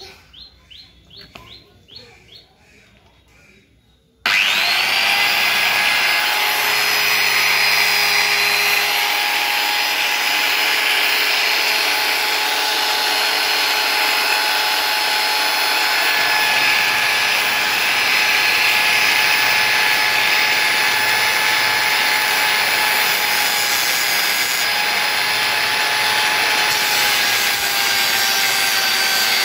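Small bird chirps, then about four seconds in an electric angle grinder switches on abruptly and runs at a steady whine, a wooden stick held against its spinning sanding disc and rasping as it is ground into shape.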